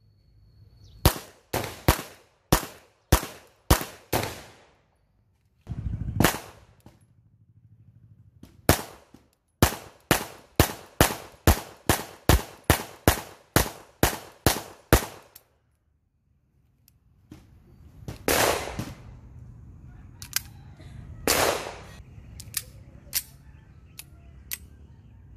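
Beretta M92FS 9mm pistol firing: seven quick shots about two a second, two single shots, then a fast string of about thirteen shots a little over two a second. Later come two longer noisy bursts and a few fainter sharp cracks.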